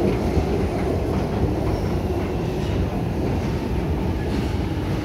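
Steady low rumble of a moving Underground station escalator, its step chain and machinery running.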